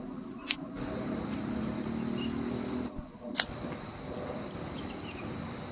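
Large cloth flag flying on a metal flagpole in the wind: a steady outdoor rush with two sharp clicks, about half a second in and about three seconds later, the second the louder.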